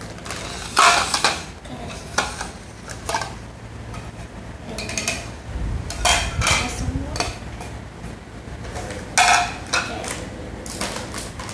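Plastic plates clattering as they are set down on a tiled floor, a few sharp knocks, the loudest about a second in and near the end, with plastic snack bags rustling in between.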